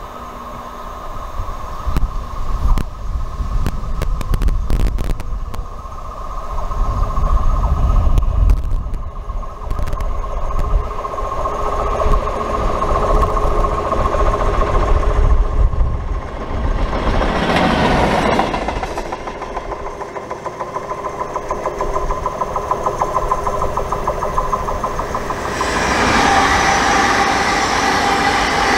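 A yellow on-track track-maintenance machine runs past on its diesel engine, with a steady drone, wheel clicks and a deep rumble that peaks as it passes. About three-quarters of the way in, an electric passenger train starts rushing past with wheel-and-rail noise and a steady whine.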